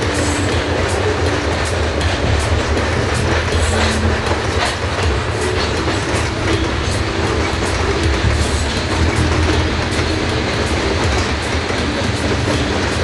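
Loaded open-top freight cars rolling past at steady speed: a continuous low rumble of steel wheels on rail, with irregular clicks as the wheels cross rail joints.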